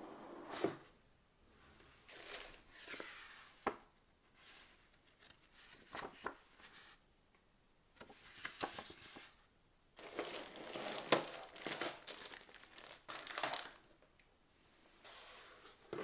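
Packaging being unwrapped: plastic or paper wrapping crinkling and tearing in several separate bursts, with a few sharp clicks.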